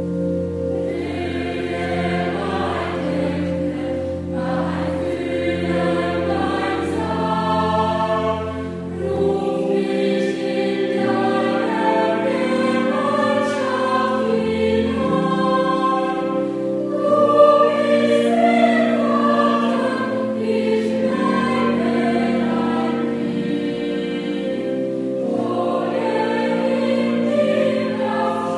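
Youth choir singing a slow piece in parts, over long held accompaniment notes. A low bass note sounds under the voices and drops out about nine seconds in.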